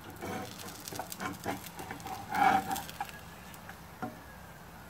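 Slotted spatula scraping and tapping against a frying pan as it lifts the edge of a thin pancake to check the underside: a string of small clicks and scrapes, with a louder scrape about halfway through.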